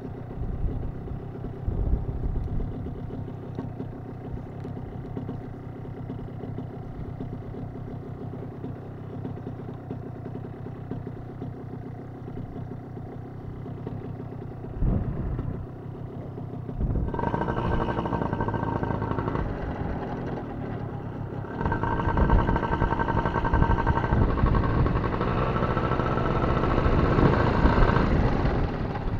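Paramotor engine and propeller idling steadily, then throttled up about two-thirds of the way through, easing off briefly and running up again before dropping back near the end.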